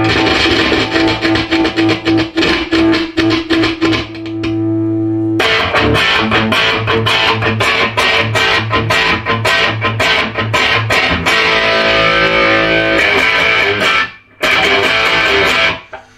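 Electric guitar played through a Peavey Classic 30 valve combo amp on its lead channel, a playtest of the rebuilt amp working on its new circuit board. A held chord rings for about four seconds, then after a short pause come busy picked phrases, with a brief break near the end.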